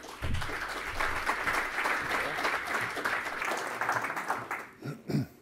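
Audience applauding, dying away about four and a half seconds in, followed by a couple of short low thumps near the end.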